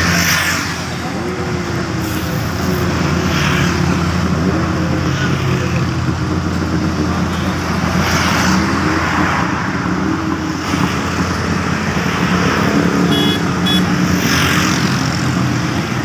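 Asphalt paver's diesel engine running steadily, with road traffic swishing past every few seconds.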